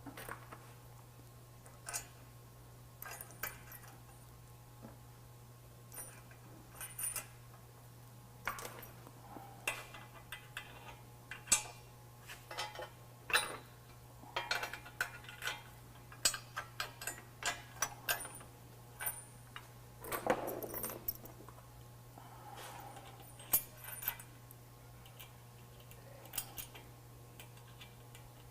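Irregular metallic clinks and rattles of nuts, bolts and hand tools as a winch tray is positioned and bolted to a bumper's frame-bracket flanges. A steady low hum runs underneath.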